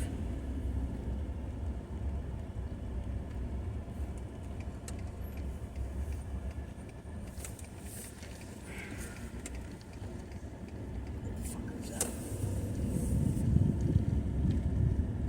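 Car driving, a steady low engine and road rumble heard from inside the cabin, with a few sharp clicks and knocks and the rumble building near the end.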